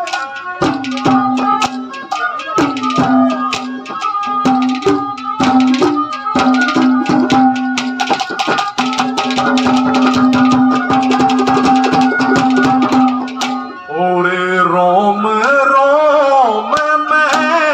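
Haryanvi ragni accompaniment playing an instrumental passage: fast hand-drum strokes under a melody of long held notes. About 14 seconds in, a man starts singing over it.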